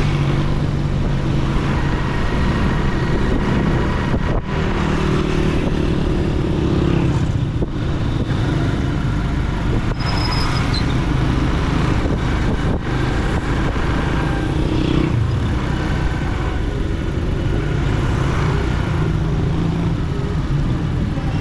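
A motorcycle engine runs steadily as the bike rides along a road, over road and wind noise, with a few brief dips in the sound.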